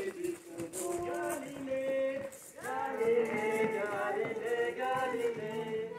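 Background music with singing: a melody sung in held, steady notes, fuller from about two and a half seconds in.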